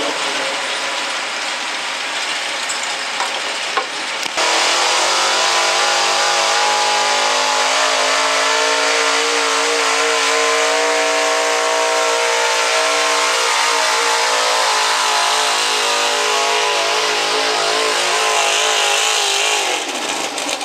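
Gasoline pickup truck engine held at high revs under full load while pulling a weight-transfer sled, a steady strained note with the revs wavering slightly, then dropping off near the end as the throttle is let off. In the first few seconds another pickup's engine is heard over a noisier track before an abrupt cut.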